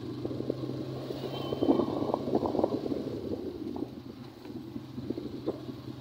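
Ride noise from a vehicle carrying the camera along a paved road: a steady low hum with an irregular rattling rumble that is loudest a couple of seconds in and then eases off.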